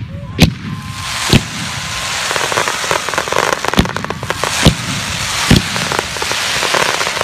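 Fireworks display: a handful of sharp bangs from bursting shells over a dense crackling hiss from spark fountains and crackling stars, the crackle building up about a second and a half in.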